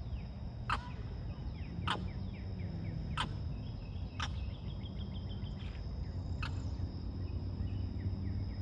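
Outdoor ambience on a river: a steady low rumble under a thin, steady high-pitched drone, with short sharp clicks repeating about once a second.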